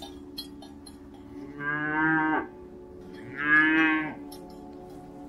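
Cattle mooing twice, each low call lasting about a second, the second louder, over a steady faint hum.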